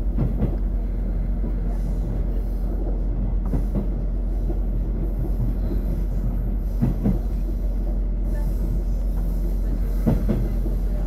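Vintage diesel railcar running along the line, heard from on board: a steady low engine drone with a few sharp knocks of the wheels over rail joints, about three seconds apart.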